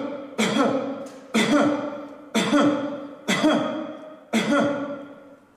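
A person coughing on purpose, about once a second, five sharp coughs each trailing off in a voiced tail, given as a cough sample for recording.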